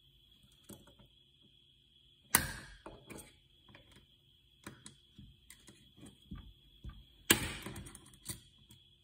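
Allen key and small wrench working the tight lid screws of an Edelbrock EFI fuel pump sump: two sharp metal clicks, about two and a half seconds in and again near the end, with light ticks and scrapes of the tools between.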